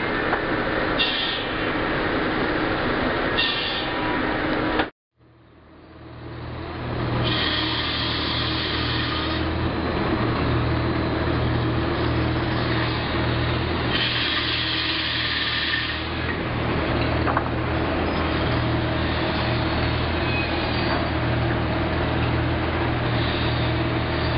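Sawmill machinery: a large circular headsaw cutting through a log for about five seconds, then a sudden break. After that comes the steady hum of the mill's roller and chain conveyors, with two louder high-pitched stretches.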